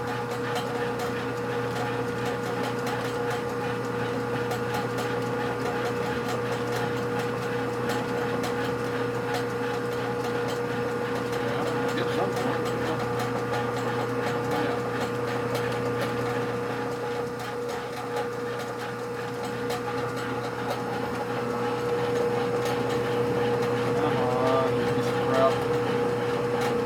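Metal lathe running steadily, its motor and gearbox giving a constant hum. A brief voice is heard near the end.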